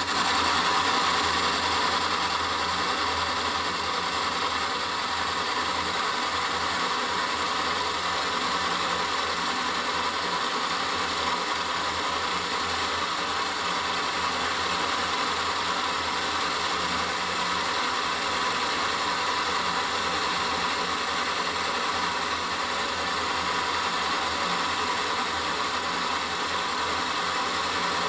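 Milling machine running with an end mill cutting a circular recess into the face of a metal flywheel blank: a steady machining whir with a held mid-pitched tone over a low hum.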